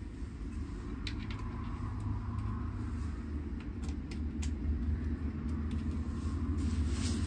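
Steady low rumble, with a few faint clicks as a bicycle brake shoe is handled and fitted to its caliper.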